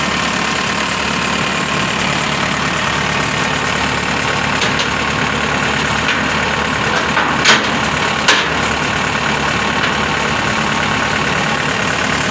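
Engine idling steadily, with two sharp metal clanks about seven and a half and eight seconds in as steel loading ramps are handled.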